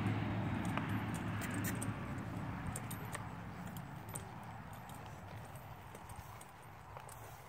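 Palomino horse walking under a rider on soft dirt, its hooves falling in a slow clip-clop, over a steady rushing background that slowly fades.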